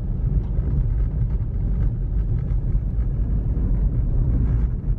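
Steady low rumble of a car's road and engine noise heard from inside the moving car.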